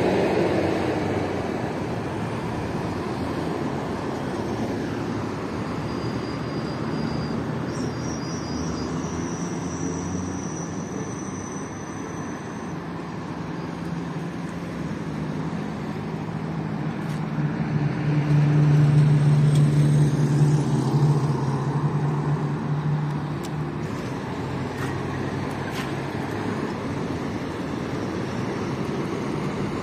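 Road traffic with cars passing, a steady wash of engine and tyre noise. A louder engine hum swells as a vehicle passes close, about two-thirds of the way through.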